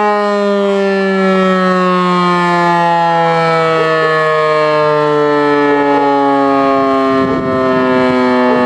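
E57 electric rotor siren wailing loudly with its pitch slowly falling as it winds down, part of the German fire-alarm test signal.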